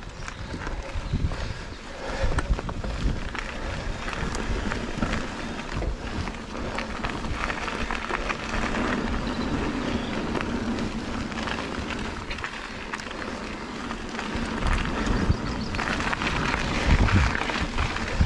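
Trek Fuel EX 8 XT full-suspension mountain bike rolling down a dirt and gravel trail: tyre noise over the ground, knocks and rattles of the bike over roots and stones, and wind buffeting the microphone. It gets rougher and louder near the end.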